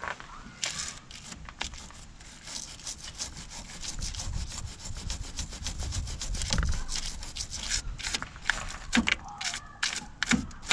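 A brush scrubbing hard at thick corrosion on a car battery terminal, a fast run of rough scraping strokes.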